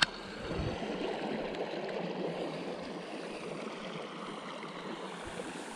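A small creek's water running steadily.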